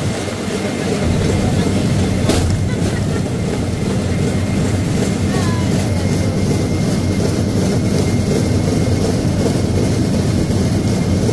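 Steady rumble of a pedal rail bike's steel wheels rolling along the rails, with one sharp click a little over two seconds in.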